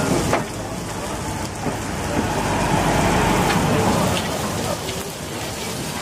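Fish frying on an oily flat-top griddle: a steady sizzle that swells in the middle, with a few clicks of handling.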